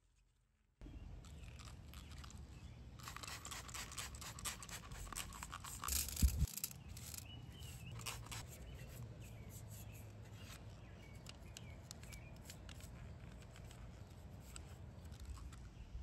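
Brush scrubbing the type-bar mechanism of a Smith Corona Silent typewriter: dense scratching with light clicks of metal parts, starting about a second in, over a low rumble, with a thump about six seconds in.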